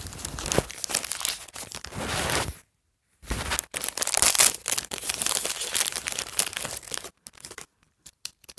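Small plastic blind bag being torn open and crinkled by hand, in two stretches with a brief pause between, then a few light rustles near the end.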